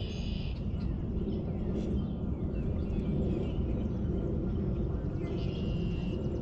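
Outdoor lake ambience: a steady low rumble, with two short high-pitched buzzes, one right at the start and one about five seconds in.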